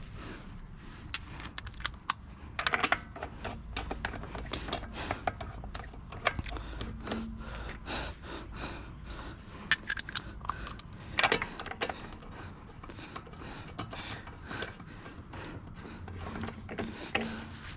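Scattered light metallic clinks and knocks of wheel parts and tools being handled during a tire change, with louder clusters of clanks about three seconds in and again about eleven seconds in.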